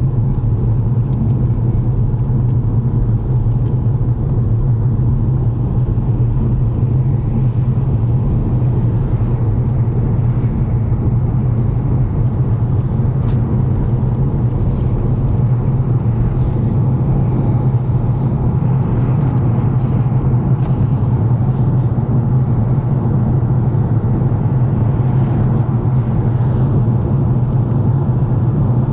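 Car driving at a steady speed: an even, loud low rumble of engine and road noise.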